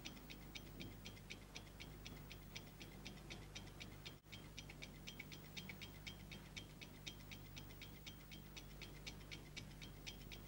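A clock ticking evenly and quickly, about four ticks a second, over a steady low hum. The sound drops out for an instant about four seconds in.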